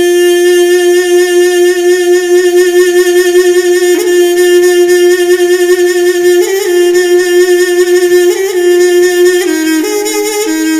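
Music: a wind instrument holds one long, loud note, with a few short wavering turns and a shift in pitch near the end.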